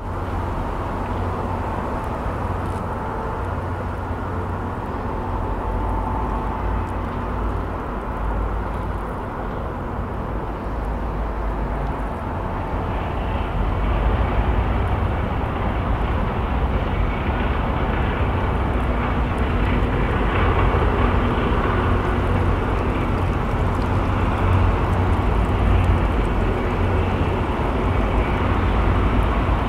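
Steady low rumble of city traffic from an elevated highway. About 13 seconds in it grows a little louder and fuller as an MBTA commuter rail train rolls past across the drawbridge, and the rush continues while the coaches pass.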